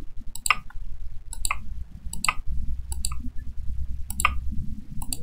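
Computer mouse left-button clicks, roughly one a second and some in quick pairs, as vertices are placed by Ctrl-clicking in Blender, over a low steady background rumble.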